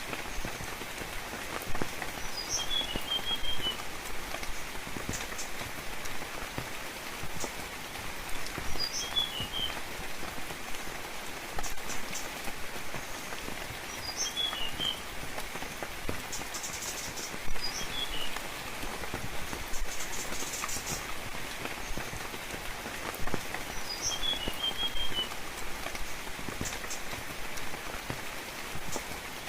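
Steady rain with scattered drip ticks, and a bird calling over it: a single high note followed by a quick run of short chirps, repeated about every five to six seconds.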